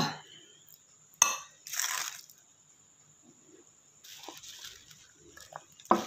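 A person eating very spicy noodles: one sharp click, like a utensil knocking the bowl, about a second in, then a short breathy hiss and soft eating and breathing noises, air drawn through a mouth burning from chili.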